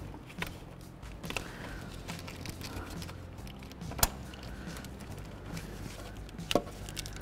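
Faint handling of a plastic electrical connector and wiring being pushed into place, with a sharp click about four seconds in and a softer click a couple of seconds later, over a steady low hum.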